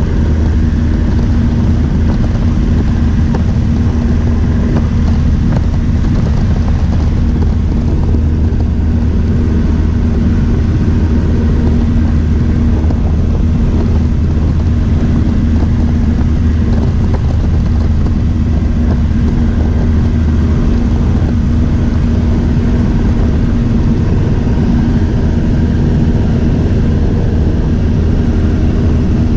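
Steady drone of a high-wing light airplane's engine and propeller in cruising flight, heard from inside the cabin.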